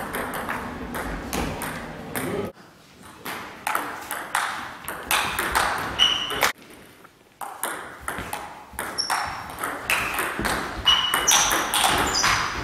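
Table tennis rallies: the celluloid ball clicking sharply off the bats and the table in quick runs of hits, broken off abruptly twice by edit cuts.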